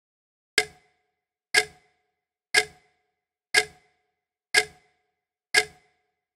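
Clock ticking sound effect: six sharp, identical ticks, one each second.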